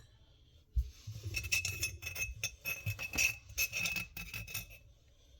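A spoon stirring a drink in a glass, clinking rapidly against the side with a ringing glassy note, from about a second in until near the end.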